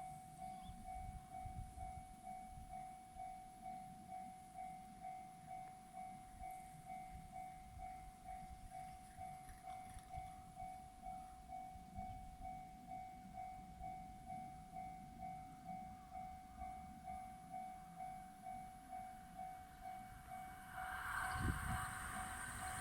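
Level-crossing warning bell ringing steadily at about two strokes a second. Near the end the rumble of an approaching train rises under it.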